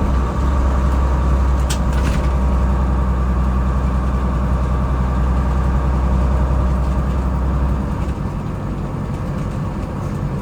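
Cab-over truck's engine running at a steady idle with a low hum, which eases a little about eight seconds in. Two short clicks come about two seconds in.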